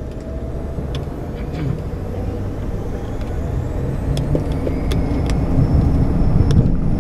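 Gulfstream G150 business jet's Honeywell TFE731 turbofans heard from the cockpit, with a low rumble that grows steadily louder and a faint whine rising in pitch from about halfway through, as the engines spool up on the runway. Several sharp clicks and knocks come through over it.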